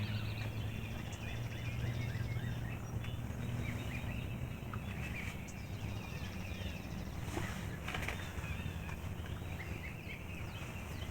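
Songbirds chirping and singing in a morning chorus, many small overlapping calls, over a low steady hum that fades about halfway through.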